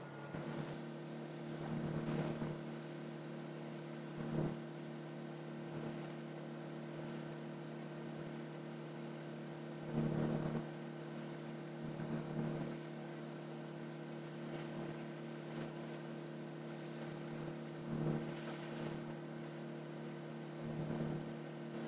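A steady electrical hum, with short bursts of noise every few seconds.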